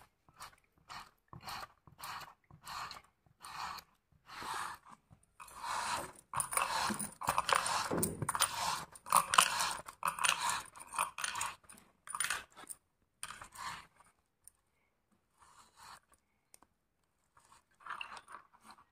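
Half-boiled potatoes being pushed across a wooden hand slicer's metal blade, each stroke a short crunchy scrape. The strokes come a little under two a second at first, then grow faster, louder and busier in the middle, and thin out to a few faint strokes near the end.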